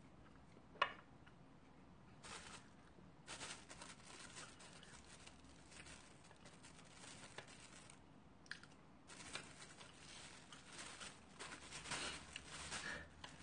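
Plastic takeout packaging rustling and crinkling in irregular spells as food is handled at the table, with one sharp click about a second in.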